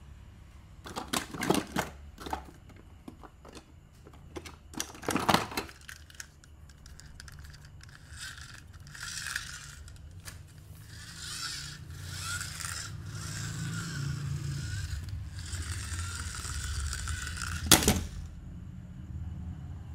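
Plastic and die-cast toy cars clattering against one another and the cardboard box as they are handled, in two short bursts of clicks. Then a longer stretch of scraping and rustling, ending in one sharp knock.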